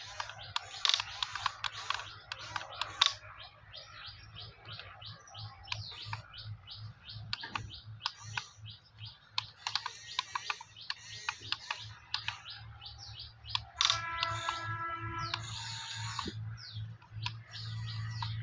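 Birds chirping in quick, short notes, with a low steady hum underneath that grows stronger near the end.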